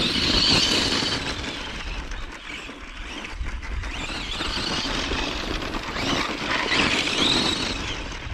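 Tamiya GF-01 Heavy Dump Truck, a radio-controlled model, driving on loose gravel: the whine of its electric motor and gearbox rises and falls with the throttle over a steady crunching hiss from the tyres.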